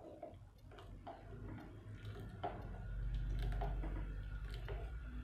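A spoon stirring a thin sugar-and-condensed-milk glaze in a non-stick pan, its tip ticking and tapping against the pan's sides and bottom, irregularly about twice a second, over a low hum.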